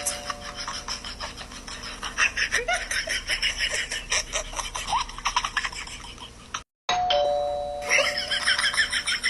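Two-tone doorbell chime, a higher 'ding' and then a lower 'dong', rings about seven seconds in and holds for a couple of seconds. The tail of an earlier chime fades out at the start. A dense patter of clicks runs underneath.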